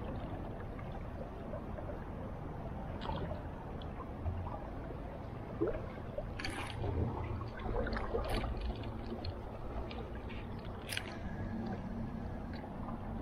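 River current flowing and gurgling close to the microphone, with a low wind rumble on the mic and a scattering of short sharp ticks through the middle.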